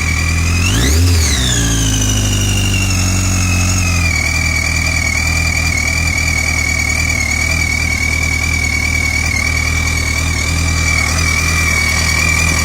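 Engine idling with a steady high-pitched whine over its running, revved once about a second in and settling back to idle. The uploader calls it a weird sound that appeared after his own gasket change.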